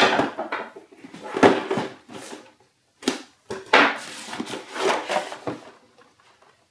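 Cardboard packaging being opened by hand: the outer sleeve slid off the box and the inner flaps folded open, a string of short scrapes and rustles with brief pauses, dying away near the end.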